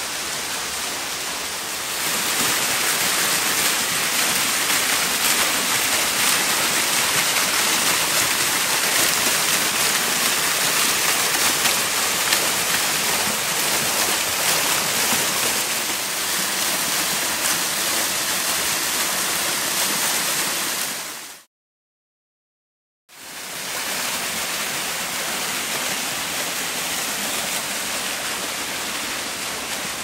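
Small mountain waterfall splashing steadily. It gets louder about two seconds in, cuts out briefly a little after twenty seconds, then returns slightly softer.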